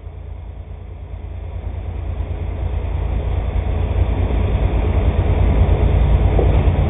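Diesel freight locomotive approaching, its low engine rumble growing steadily louder.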